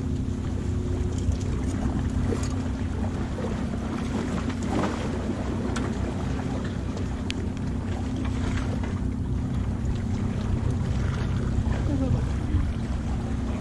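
Steady low rumble of wind on the microphone and sea against the jetty rocks, with a few faint clicks.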